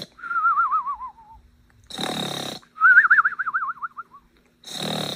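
Exaggerated cartoon-style snoring by a sleeping person: a rasping snore on the in-breath, then a warbling whistle on the out-breath that slides down in pitch. The cycle repeats about every two and a half seconds.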